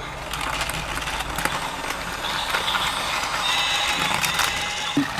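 Battery-powered plastic toy trains and a motorized toy car running on a plastic track set: small gear motors and wheels clattering and rattling, with a thin high whine joining about two seconds in.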